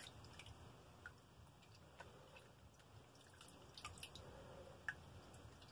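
Faint dripping and trickling of water as a brined trout is rinsed by hand with water poured from a plastic jug over a tub, with a few soft drips scattered through.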